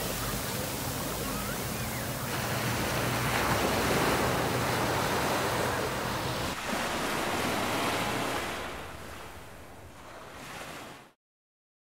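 Ocean surf washing up over a sandy beach, a rushing wash that swells a few seconds in, then fades and cuts off suddenly near the end.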